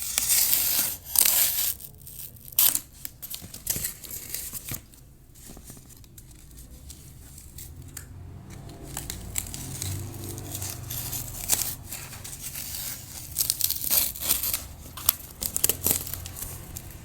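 Cardboard being torn and cut by hand: rasping tearing and crinkling in bursts near the start and again about two-thirds of the way through, with a quieter stretch between.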